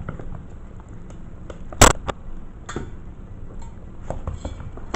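Scattered clicks and knocks of puppies pawing and bumping into a GoPro camera, with one loud, sharp knock about two seconds in.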